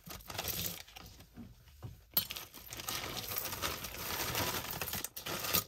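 A handful of thrifted costume jewelry clinking and rattling as the pieces are handled and untangled, with one sharper clack about two seconds in.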